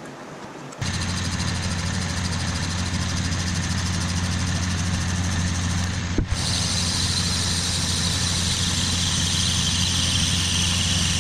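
Old engine lathe running steadily, spinning a brass bar, with a strong low hum and a hiss above it. It starts abruptly about a second in and breaks off for a moment around six seconds in.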